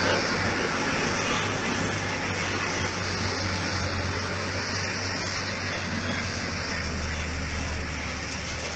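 Heavy equipment's diesel engine running with a steady low hum over a broad rushing noise; the hum drops slightly in pitch about seven seconds in.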